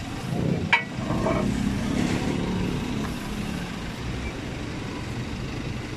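Steady rumble of road traffic with vehicle engines running, and a single sharp click a little under a second in.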